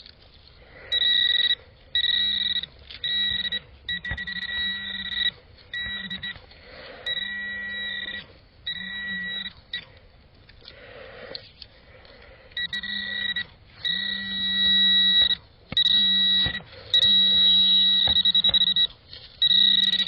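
Metal detector sounding a target: a steady high electronic tone switching on and off in irregular bursts, some short, some over a second long, as the coil or probe passes back and forth over buried metal in the hole.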